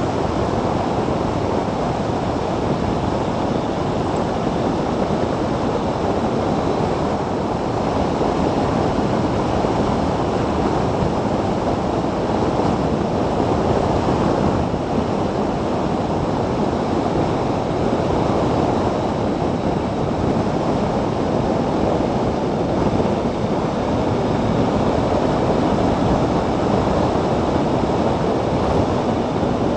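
Steady wind rush and tyre-on-road noise from an electric motorcycle riding at speed, with wind buffeting the bike-mounted microphone.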